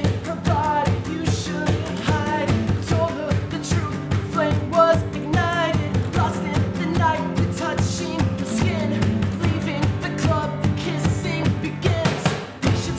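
Male voice singing a pop-rock melody over two steel-string Takamine acoustic guitars strummed in a steady rhythm.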